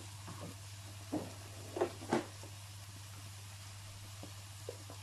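A few light knocks and taps of kitchen items being handled, the loudest two close together about two seconds in, over a faint steady hiss and a low hum.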